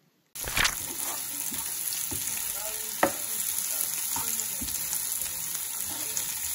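Sliced onions and garlic sizzling in a hot nonstick frying pan as they are stirred with a spatula, starting about half a second in, with a couple of sharp knocks of the spatula against the pan.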